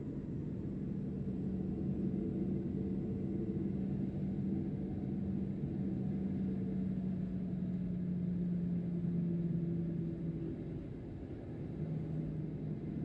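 Boeing 737-800's CFM56 turbofan engines running, heard from inside the cabin as a steady rumble with a low hum. The hum sags slightly in pitch and the sound dips briefly in loudness near the end.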